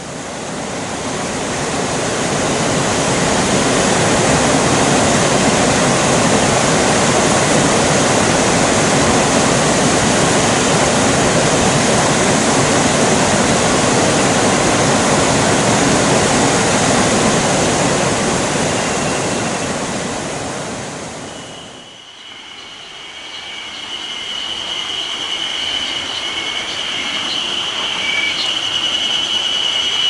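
Water pouring over a low river weir, a loud steady rush. About twenty seconds in it stops, and a steady high-pitched insect drone takes over: cicadas singing.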